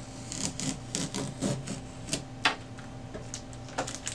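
Blue securing tape being peeled off a new inkjet printer's plastic housing: irregular crackling rips and a few sharp ticks.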